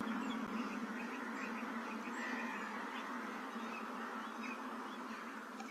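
Steady outdoor background hiss with faint, short bird chirps scattered through it.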